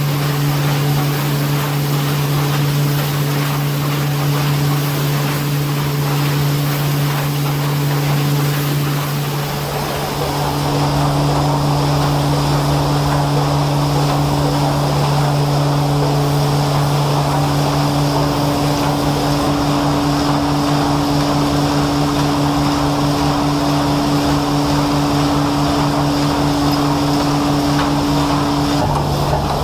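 Industrial machinery running with a steady, loud, low hum. About ten seconds in, a deeper rumble and a rougher noise join it, and one of the hum's tones cuts out just before the end.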